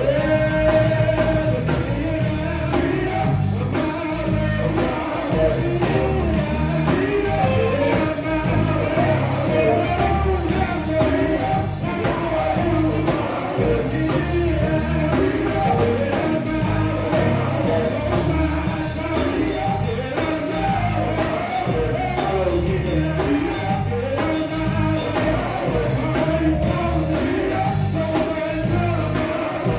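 Male gospel vocal group singing live in close harmony over a full band of drums, electric bass, keyboard and electric guitar, with a steady beat.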